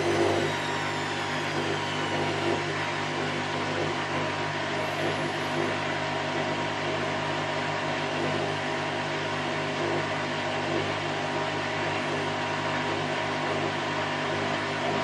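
Candy Grand O' F106 washing machine on its spin cycle: a steady motor and drum hum with a high motor whine that falls in pitch over the first couple of seconds and starts rising again near the end, as the drum changes speed on its way to a 1000 rpm spin.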